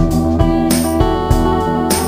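Electric guitar playing a melody in an instrumental track, over a backing with low sustained notes and a regular beat.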